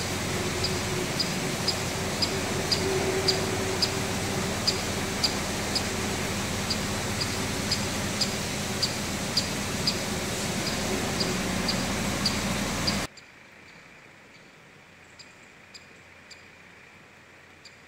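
River water rushing steadily, with a faint high tick repeating about twice a second. About thirteen seconds in, the rushing cuts off sharply to a quiet background in which the ticks go on.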